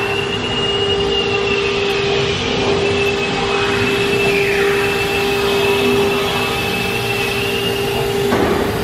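Freedom Machine Tool CNC router running, its spindle giving a steady whine over a constant rushing machine noise.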